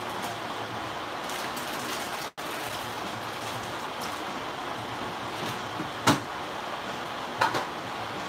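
Steady hiss in a kitchen, with two sharp clanks about a second and a half apart near the end, like dishes or pans being knocked together at the sink.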